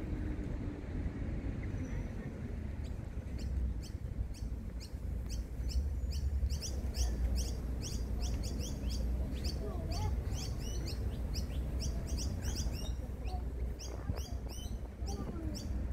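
Birds chirping in a fast run of short, high, downward-sweeping notes, starting a few seconds in and lasting until near the end, over a low, steady city rumble.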